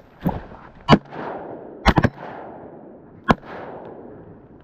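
A volley of shotgun shots, about five in quick succession over three seconds, two of them nearly together, each trailing off in a rolling echo across open ground.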